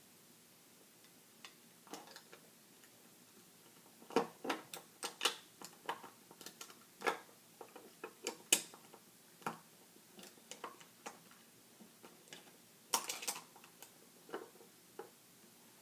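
Small plastic LEGO pieces clicking and clattering as they are handled and fitted, in irregular sharp clicks. The clicks are busiest from about four to nine seconds in, with another cluster about thirteen seconds in.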